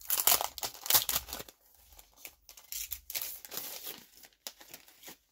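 Packaging crinkling and rustling as items are picked up and handled. It is loudest in the first second and a half, then softer, scattered rustles follow.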